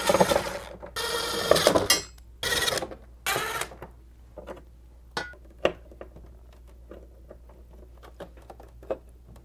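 Ridgid cordless drill/driver driving the bracket screws in four short runs of motor whir over about the first four seconds. After that come scattered light clicks and taps from handling the screws and metal bracket arms.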